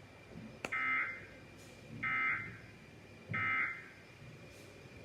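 Three short bursts of Emergency Alert System digital data tones, the end-of-message code that closes an EAS alert, each about half a second long and a little over a second apart, after a sharp click.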